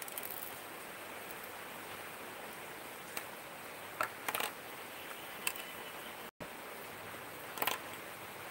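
A few light clicks and taps of a ball pen's plastic and metal parts being handled and laid on a table as the refill is taken out of the body, over a steady hiss. The clearest clicks come about four seconds in and again near the end.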